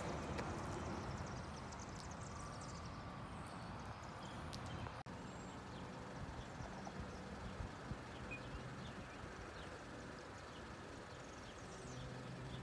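Quiet outdoor street ambience: a faint steady low hum under an even background hiss, with scattered faint high chirps and a few light clicks. The sound cuts out for an instant about five seconds in.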